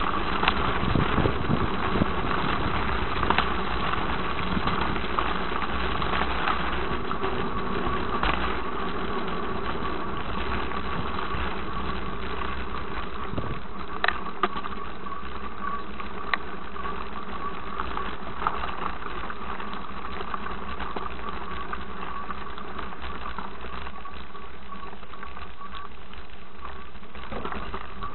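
A vehicle's motor running steadily while moving slowly, with a constant whining tone over the hum and a few sharp clicks about halfway through.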